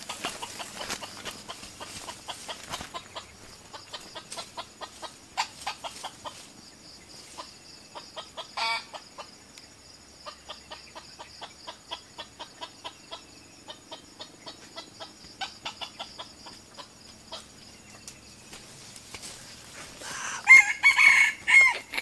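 Red junglefowl rooster crowing loudly near the end, over a steady high drone of insects. Before the crow comes a long run of short, sharp clicks, several a second.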